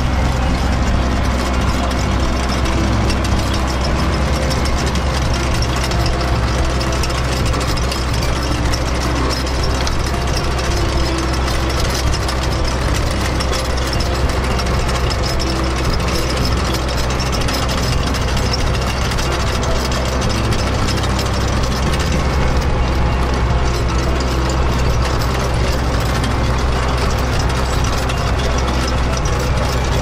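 Kubota SL41 tractor's diesel engine running steadily as it pulls a Kubota UZK300 levee plastering machine, whose rotor churns and packs soil along a rice paddy levee.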